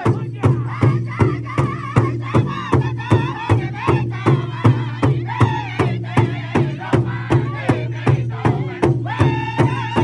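Powwow drum group singing in unison over a large shared drum, the drumsticks striking together in a steady beat of about three strokes a second. Near the end the voices rise to a high held note.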